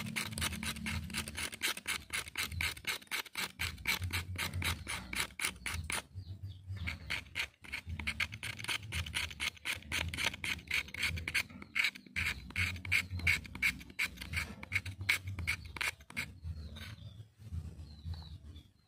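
Knife blade scraping a fatwood stick in rapid back-and-forth strokes, rasping off fine resinous shavings and dust for tinder. The strokes pause briefly twice and thin out near the end.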